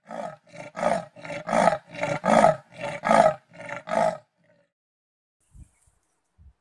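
Leopard sawing call: a loud, rasping series of about ten grunts, two or three a second, that stops about four seconds in.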